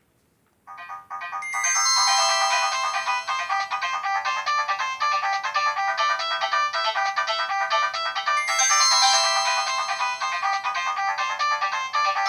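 Nokia 108 mobile phone ringtone: a busy, fast electronic melody that starts about half a second in, swells over the next second and plays on steadily.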